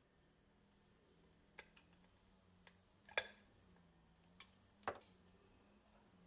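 Small sharp clicks and taps of a tool and fingers against a tin toy boat's hull as it is handled, about six in all, spread out, the loudest a little after three seconds in.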